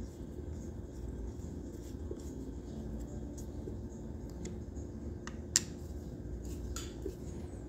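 Screwdriver tightening the reservoir lid screws on a Harley-Davidson front brake master cylinder: faint metal clicks and scrapes over a steady low hum, with a sharper click about five and a half seconds in and another near the end.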